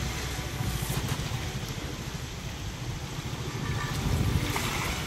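Wind buffeting the microphone, a gusty low rumble over the wash of sea waves, swelling briefly about four seconds in.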